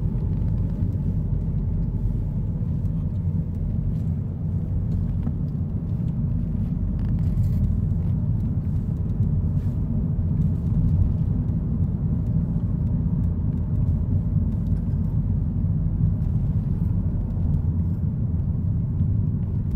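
A car driving along, heard from inside the cabin as a steady low rumble.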